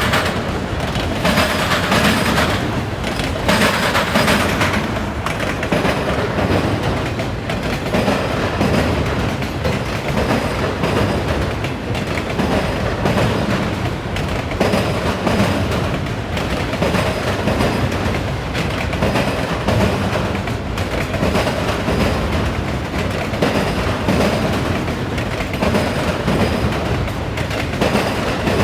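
Wheels of a passing auto rack freight train hammering over a railroad diamond crossing: a continuous run of loud metallic bangs and clatter as car after car rolls through.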